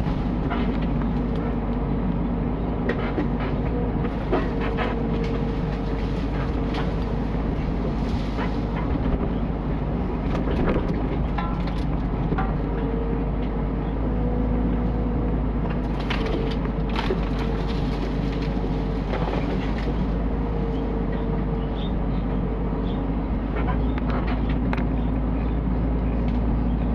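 Mini excavator's diesel engine running under load, its pitch and the hydraulic whine swelling and easing as it works, with scattered knocks and clanks.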